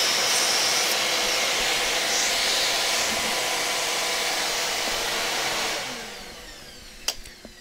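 Vacuum cleaner running steadily, sucking dust out of a laptop, then switched off about six seconds in and winding down.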